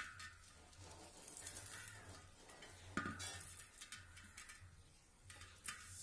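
Faint scrapes and clicks of hands handling a rusty motorbike spoke wheel, fingers rubbing flaking rust inside the steel rim; the sharpest clicks come right at the start and about three seconds in, with a few more near the end.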